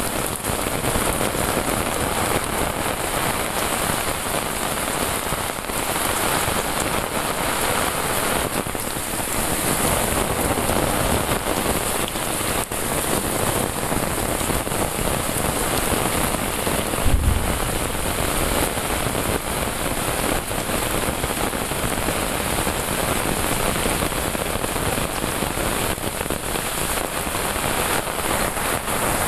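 Heavy rain falling steadily on a paved path and foliage, an even hiss of rain, with a brief low thump about seventeen seconds in.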